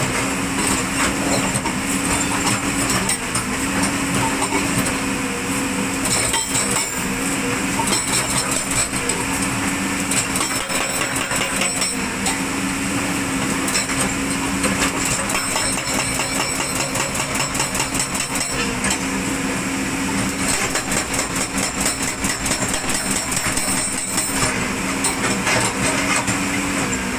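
Hydraulic rock breaker on a JCB excavator hammering quarry stone in a rapid, continuous run of blows, over the excavator's diesel engine running under load.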